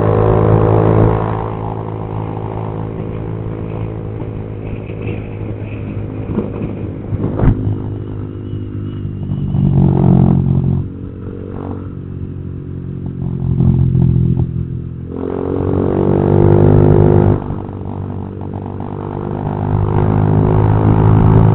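Honda Vario 150 scooter's single-cylinder engine running through an aftermarket imitation exhaust, ridden on the road: the exhaust note rises and falls as the throttle is opened and closed, with several louder pulls of acceleration. A single knock about seven and a half seconds in.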